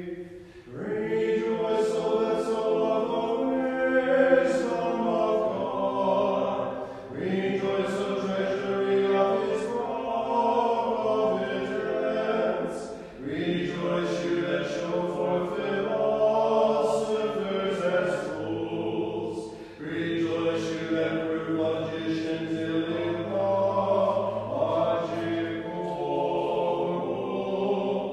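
Orthodox church choir singing a cappella chant in long sustained phrases of about six seconds each, with a short break for breath between phrases.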